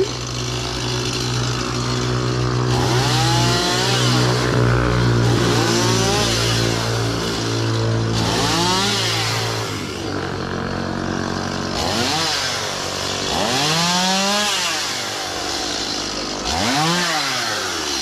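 Two-stroke chainsaw idling, then revved up and falling back about six times as it cuts through the limbs of a fallen breadfruit tree.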